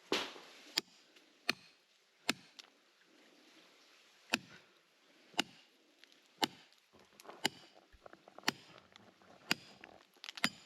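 A hand tool striking rock, sharp blows about once a second with a short pause midway, chipping and breaking the rock apart.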